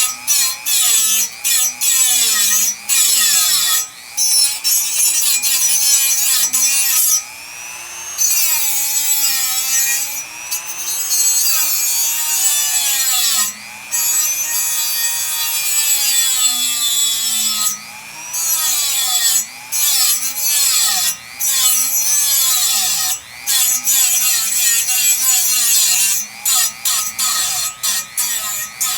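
Small rotary tool with an abrasive cut-off disc grinding through a metal frame bar, its motor whine rising and sagging as it bogs under load, with many short breaks as the disc is lifted and pressed in again. The cut is going slowly.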